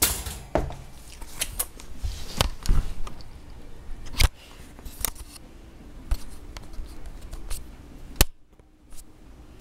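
Irregular sharp metallic clicks and taps on a wire dog crate, about a dozen, with a short lull near the end.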